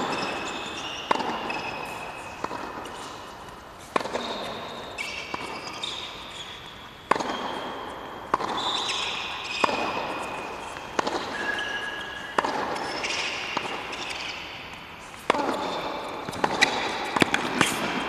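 Tennis rally on a hard court: sharp racquet strikes and ball bounces about every second and a quarter, each echoing briefly around the arena, with short high shoe squeaks between shots.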